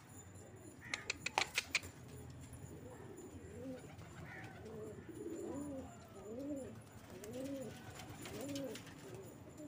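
Pigeons cooing, a repeated rising-and-falling coo about once a second. About a second in there is a quick run of about six sharp clicks.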